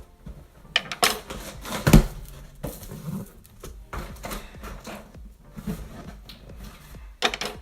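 Large cardboard box being cut and pulled open: an irregular run of clicks, scrapes and knocks of cardboard, loudest about two seconds in, with another cluster near the end.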